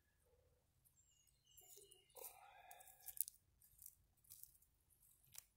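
Near silence, with a few faint crunches and tearing sounds of weeds being pulled up by hand from dry dirt.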